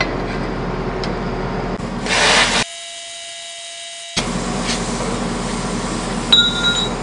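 Plasma cutter cutting steel plate: a steady harsh hiss that grows louder about two seconds in, changes for a second and a half into a thinner, whining sound with several steady tones, then goes back to the hiss.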